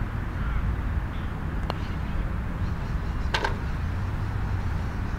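A putter taps a golf ball with a faint click, and a little over a second and a half later the ball drops into the cup with a sharper clatter, holing a birdie putt. A steady low rumble runs underneath.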